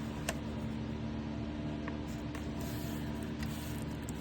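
Steady low electrical hum of a running room appliance, with a few faint taps and clicks from paper being handled on the craft table.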